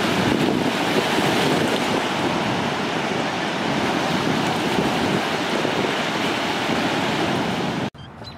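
Steady rushing noise of wind buffeting the microphone and river water, which cuts off suddenly near the end.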